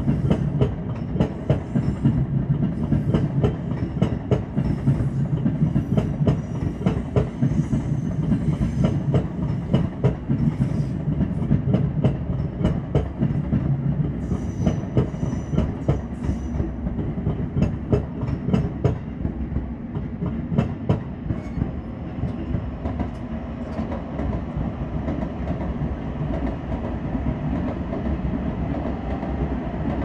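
Trains running past on the tracks below, the limited express Midori among them: a steady rumble of wheels on rail with rapid clickety-clack over the joints and points. The clicking thins out after about twenty seconds.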